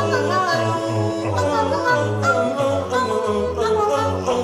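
Music with wordless singing over instruments, the voices moving through a melody.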